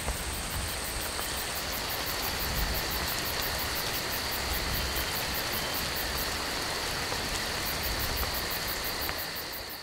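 Steady rain hiss, fading out near the end.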